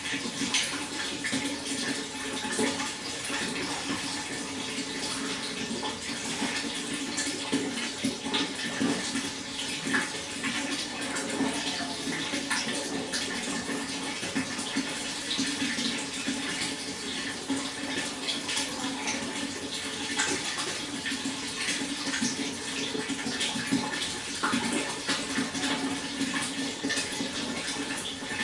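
Water flowing and splashing steadily, a continuous rush with many small bubbling splashes.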